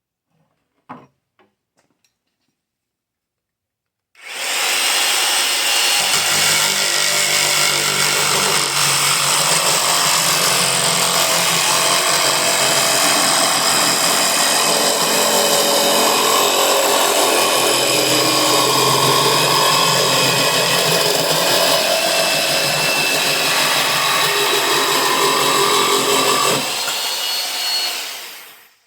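1970s Black & Decker 7504 electric jigsaw switched on about four seconds in and sawing through 3/8-inch plywood with a coarse blade, running steadily for about twenty seconds. Near the end it is switched off and the motor winds down to a stop.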